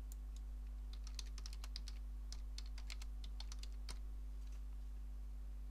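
Typing on a computer keyboard: a quick run of key clicks lasting about three seconds, starting about a second in. A steady low hum runs underneath.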